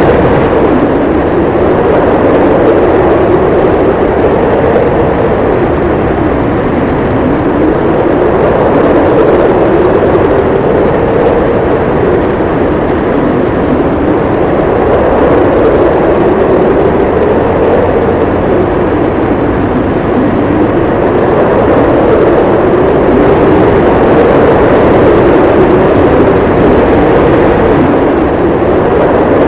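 Strong wind howling in a snowstorm: a loud, continuous rush whose pitch slowly rises and falls in long swells.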